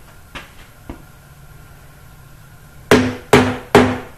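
Hammer striking metal: two light taps, then three hard blows in quick succession, each ringing briefly.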